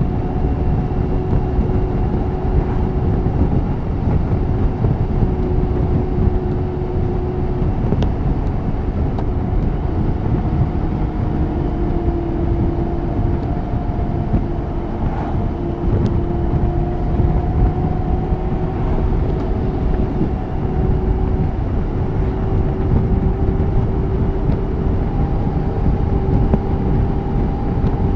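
BMW K 1600 GT's inline-six engine running at a steady pace, its note drifting slightly up and down in pitch, under a heavy low rush of wind and road noise.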